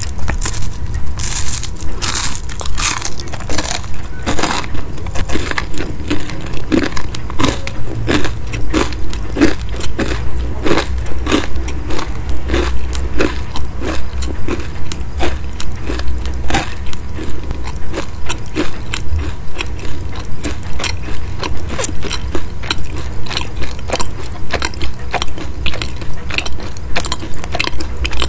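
Close-miked chewing of a crisp, flaky chicken-meat pastry: a steady run of crunching, about two chews a second.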